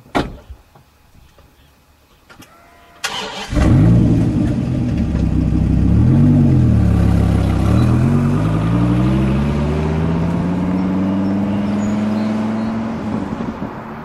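A short knock, then a Dodge Viper's V10 engine cranks and catches about three seconds in. It revs up and back down once, then pulls away with its pitch climbing steadily as the car accelerates.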